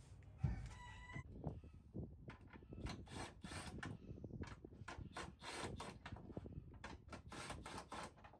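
A sharp knock and a brief creak as someone climbs into a pickup bed, then a quick, uneven run of short scraping and clicking sounds from hand work on a plywood panel in the bed.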